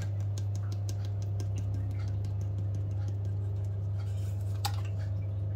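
Light ticks and clicks of a glass spice jar being handled as turmeric is sprinkled into a bowl of beaten eggs, with one sharper click near the end, over a steady low hum.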